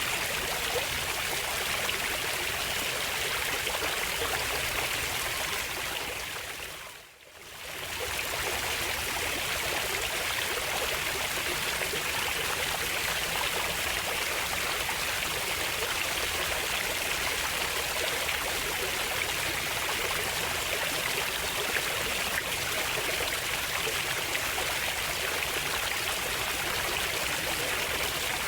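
Running water flowing steadily. It fades out briefly about seven seconds in and swells straight back up.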